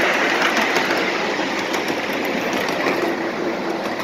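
7½-inch gauge ride-on miniature train running along its track: a steady rumble of wheels on rail, with faint repeated clicks over the rail joints.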